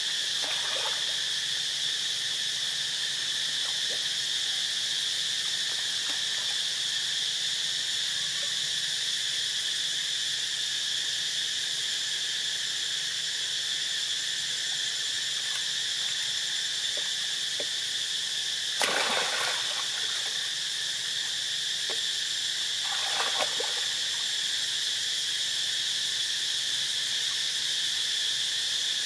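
Steady high-pitched drone of insects, with two brief splashes of water in the later part, about four seconds apart.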